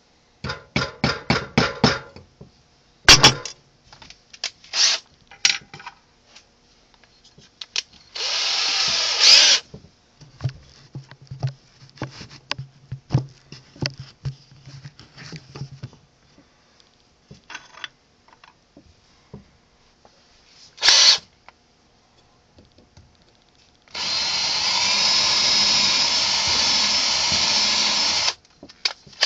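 Power drill drilling through a plug in several separate runs: a short run, a short burst, and a longer run of about four seconds. Clicks and knocks come between the runs.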